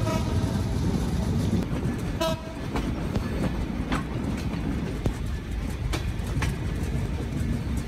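Passenger train running on the rails with a steady rumble. A few sharp wheel clicks come over the rail joints. Two short horn notes sound, one at the start and one about two seconds in.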